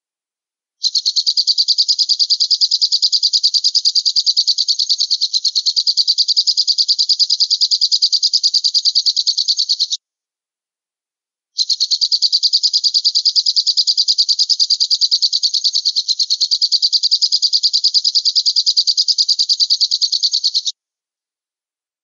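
Alap-alap (small falcon) call: a rapid, high-pitched chattering trill of quickly repeated notes, given in two long bouts of about nine seconds each, with a short break near the middle; each bout starts and stops abruptly.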